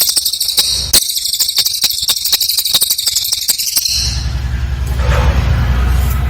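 Cililin bird singing a very high, rapid trill of tightly packed repeated notes, lasting about four seconds before it stops. A low steady hum runs underneath once the trill ends.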